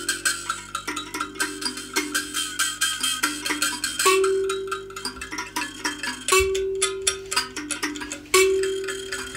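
Background music: quick, even clicking percussion with long bell-like notes struck about four, six and eight seconds in.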